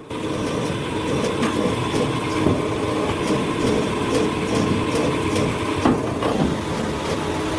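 Steady mechanical vehicle rumble with scattered irregular clicks and a faint steady tone.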